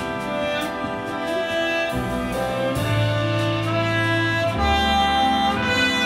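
Big band playing a jazz arrangement: a tenor saxophone over sustained chords from the horns and woodwinds, with upright bass underneath.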